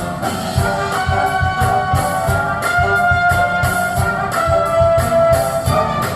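Jazzy music with brass playing long held notes over a steady bass beat, played back on an Audison Thesis car audio system.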